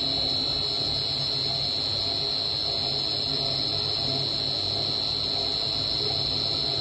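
Inverter-driven motors of a 100-litre double sigma-blade kneader mixer running steadily: a constant high-pitched whine over a low hum.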